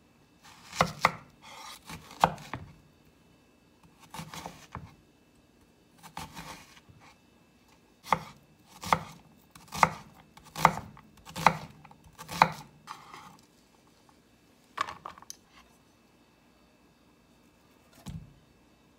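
Kitchen knife chopping an onion on a wooden cutting board: separate knocks of the blade against the board, with a regular run of six chops a little under a second apart in the middle.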